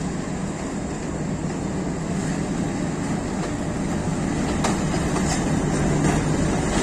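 GE diesel-electric locomotive's engine running with a steady low drone as the locomotive rolls slowly past, growing gradually louder as it nears.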